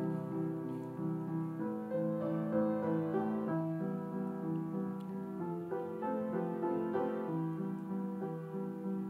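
Background piano music: a slow, gentle theme of held notes and chords.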